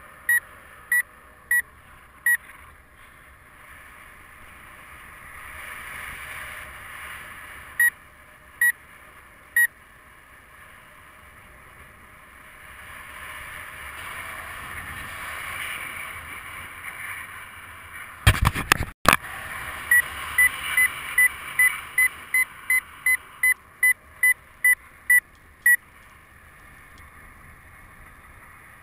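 Paraglider variometer beeping: short high beeps, scattered at first, then a quick regular run of about two a second later on, the vario's signal that the glider is climbing in lift. Wind rushes over the microphone, swelling twice, and a brief loud burst of noise cuts in a little past halfway.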